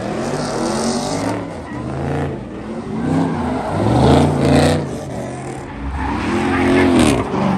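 Muscle-car engines revving hard and repeatedly during burnouts and donuts, the engine note climbing and dropping over and over with the hiss of spinning tires. The loudest surges come about four seconds in and again near the end.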